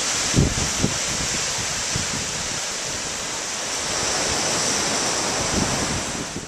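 Ocean surf washing in, a steady hiss of breaking waves and foam, with a couple of low thumps about half a second and a second in.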